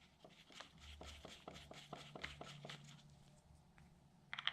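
Faint, light clicks and taps of a hand tool and small bolts against the plastic throttle housing as the bottom bolts are threaded back in. A short, louder rustle of handling comes near the end.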